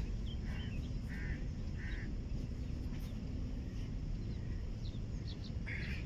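Outdoor marsh ambience: a steady low rumble with several short bird calls, the first three in quick succession and one more near the end.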